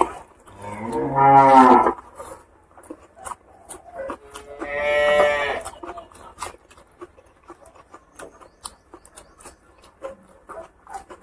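A cow mooing twice, each call about a second long, the first a little after the start and the louder of the two. Soft clicks and smacks of eating by hand and chewing run between and after the calls.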